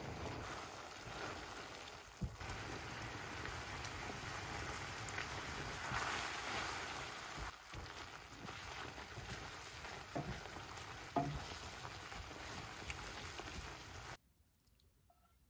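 Spaghetti carbonara sizzling in a hot pan as it is stirred, with a few light knocks of the utensil against the pan. The sound cuts off about fourteen seconds in.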